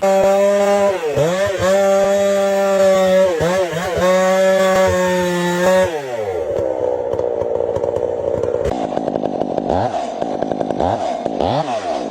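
Chainsaw running at high speed, its pitch dipping briefly several times. About six seconds in it slows to a lower, rougher note with a run of quick dips, then cuts off near the end.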